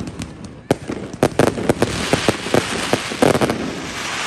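Fireworks display: a rapid, irregular run of sharp bangs, with a dense crackling hiss filling in from about two seconds in.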